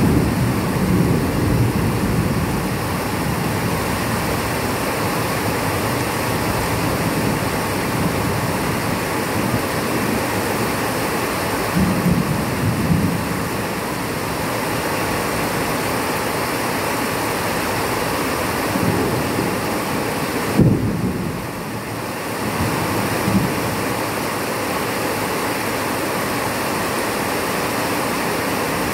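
Thunderstorm: rain falling steadily, with low rumbles of thunder swelling now and then, the strongest about two-thirds of the way through.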